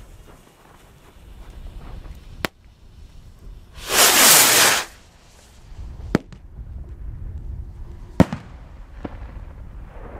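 Fireworks going off: a sharp bang, then a loud hiss lasting about a second, then three more single sharp bangs, the loudest of them past the middle.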